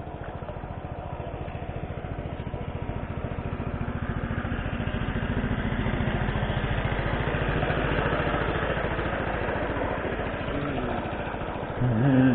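Small boat's engine running with a fast, even chugging, growing louder over the first few seconds and then holding steady.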